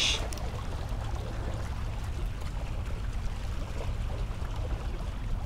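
Steady outdoor wind and water noise: a low wind rumble with bay water washing against the rocks of a jetty, and no distinct events.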